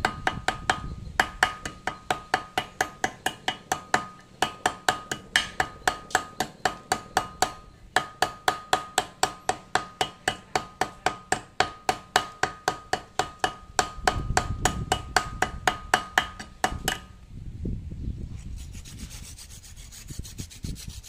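Small hammer striking a thin steel plate clamped in a vise, about three sharp metallic hits a second with a ringing note, with a short break partway through. The hits stop near the end and give way to a few seconds of rough scraping.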